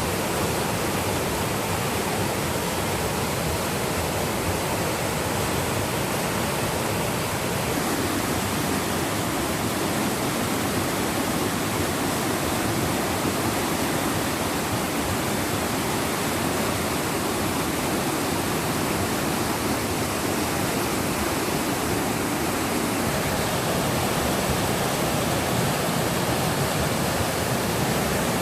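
Running water rushing steadily in an even, unbroken hiss.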